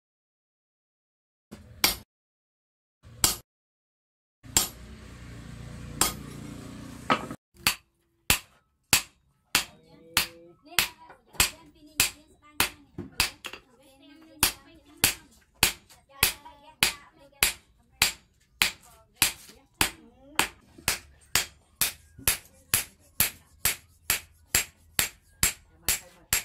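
A steel hand hammer forging red-hot axe steel on an anvil. A couple of separate sharp metallic blows come first, then steady, evenly spaced blows at a little under two a second. About five seconds in there is a few-second stretch of steady rushing noise.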